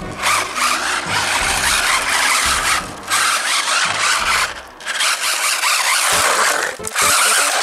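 Electric RC drift trucks sliding on rough tarmac: hissing tyre scrub that comes in bursts of a second or two, with short breaks between them.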